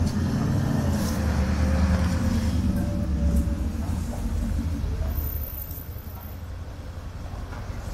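City street traffic: a motor vehicle's low engine rumble close by, which fades away about five seconds in.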